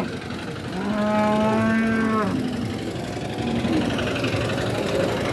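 A dairy cow moos once: one long, level call of about a second and a half, starting about a second in, over steady background noise.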